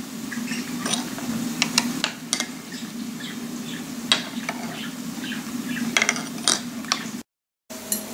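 Spoon stirring water and citrus slices in a glass jug, clinking irregularly against the glass, over a steady low hum. The sound cuts out for a moment near the end.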